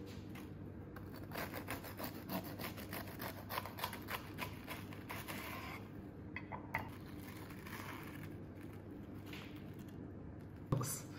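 A knife sawing through the crisp breaded crust of a fried mac and cheese block on a wooden board, a quick run of scraping strokes for several seconds. A single sharp knock near the end.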